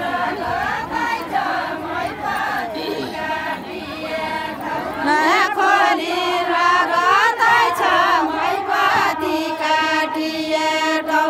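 A group of women singing a Nepali deuda folk song together, a chant-like melody with long held notes.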